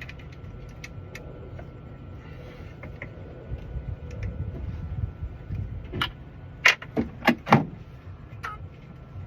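Keys and tools being handled: scattered light clicks and clatter, then four loud sharp clicks about six to seven and a half seconds in, over a low steady rumble.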